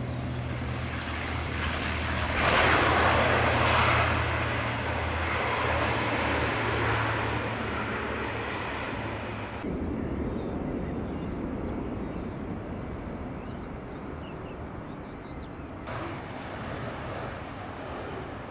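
A Bombardier Dash 8 Q400 turboprop on its landing roll, its propellers holding a steady low hum under a roar that is loudest about three seconds in. About ten seconds in the sound cuts sharply to the even rush of an Airbus A320-family jet airliner rolling out. About sixteen seconds in it steps to an Embraer E-Jet coming in to land.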